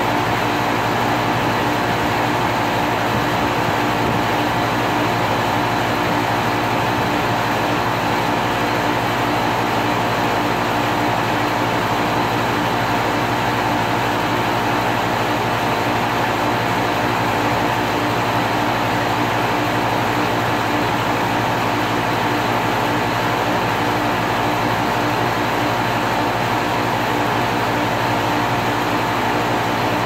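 2001 Carrier 5-ton air conditioner running steadily: a constant hum with a few held tones over an even, airy fan noise.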